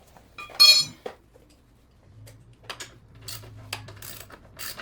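Metal clinks as the motorcycle's brake-pedal pivot bolt is struck to drive it fully home: one sharp ringing strike about half a second in, then several lighter clicks.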